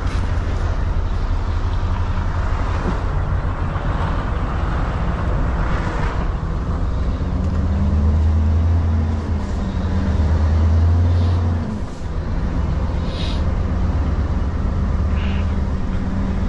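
Scania S770's V8 diesel engine running as the truck pulls away slowly. Its note grows stronger and rises from about seven seconds in, then drops off sharply about twelve seconds in before settling back to a steady hum.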